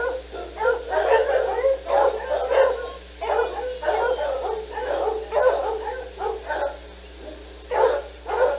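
Several dogs barking and yipping, many calls overlapping in a dense run that thins to a few single barks near the end.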